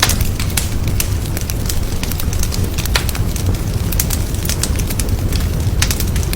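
Wood fire burning in a fireplace, crackling with frequent irregular sharp pops over a steady low rumble of the flames.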